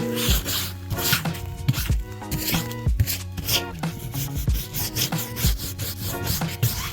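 Background music with a steady beat and sustained chords, overlaid with a rhythmic rasping.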